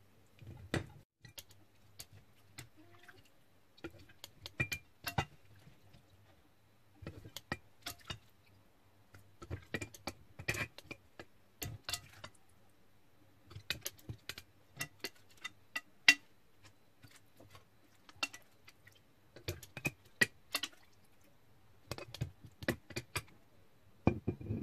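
Stainless steel tongs clicking and knocking against a glass jar and a bowl in irregular clusters of sharp clicks, as pieces of marinated chicken feet, lime and ginger are dropped into the jar. Near the end, fish-sauce marinade starts pouring from the bowl into the jar.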